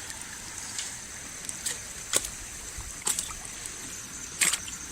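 Water trickling steadily, with about five short sharp splashes or knocks scattered through, the loudest about four and a half seconds in.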